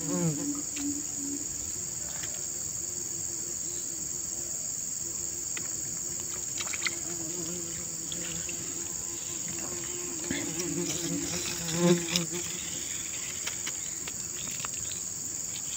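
Bees buzzing close by, their hum wavering and passing several times, loudest about twelve seconds in, over a steady high-pitched insect chorus.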